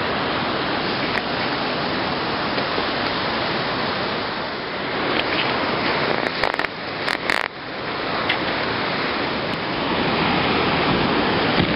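Steady roar of a waterfall's rushing water, with a few brief knocks about seven seconds in.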